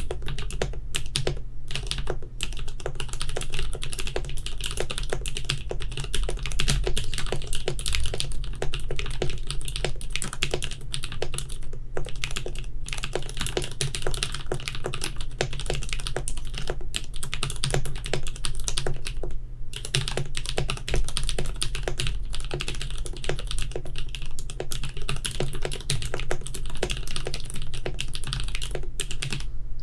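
Continuous fast typing on an Alice-layout mechanical keyboard with a stacked acrylic case and acrylic plate. Its linear frankenswitches pair Cherry housings with Kailh Pro Burgundy stems, under Kinetic Labs Polycaps keycaps, and sound on the clackier side. The keystrokes pause briefly twice.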